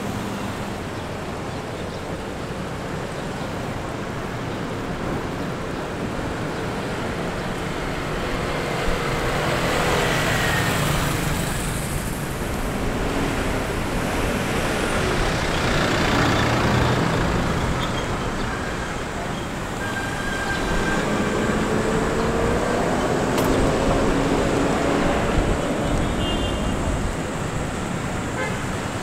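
Road traffic: about three vehicles pass one after another, each swelling and then fading, over a steady traffic hum with engine tones rising and falling in pitch.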